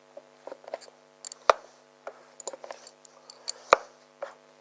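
Metal clicks and taps of a spark plug box spanner being turned with a screwdriver shaft through its holes, tightening a spark plug down in an inverter generator's engine. Two sharper clicks stand out, about a second and a half in and again later.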